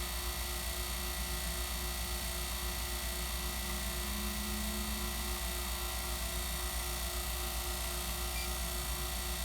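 HVAC vacuum pump running steadily with a low hum and a few steady tones, pulling a deep vacuum, with the system at about 700 microns and still falling.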